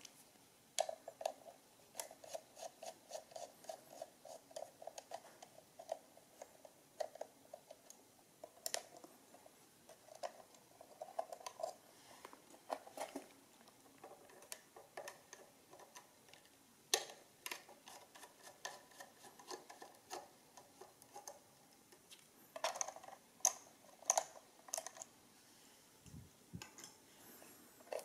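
A small screwdriver working the tiny screws on the knobs of a 1964 Beaver mechanical adding machine as the knobs are removed. Faint, irregular metallic clicks, ticks and scrapes, with a quick run of light ticks about a second in and a cluster of louder clicks near the end.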